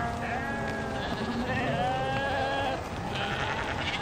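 Sheep in a flock bleating, several long calls overlapping one another.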